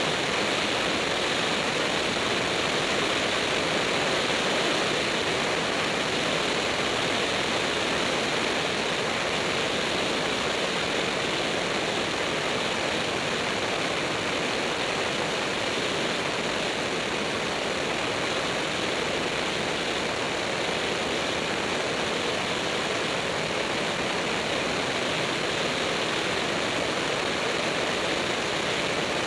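Light propeller airplane in flight: a steady, even rush of engine, propeller and airflow noise.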